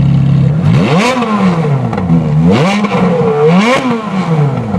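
Supercar engine idling, then revved three times in quick blips, each rising sharply in pitch and falling back, before settling to idle again near the end.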